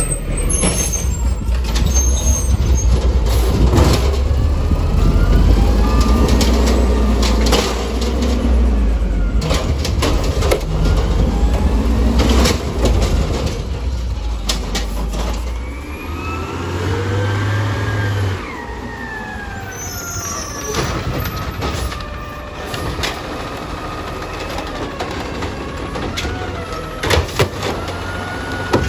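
Automated side-loader garbage trucks working curbside carts. A diesel engine runs loudly through the first half, with scattered knocks and bangs. Later comes a rising then falling whine as the hydraulic lifting arm raises a cart and dumps it.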